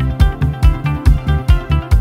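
Background music: guitar over a steady beat of about two bass hits a second.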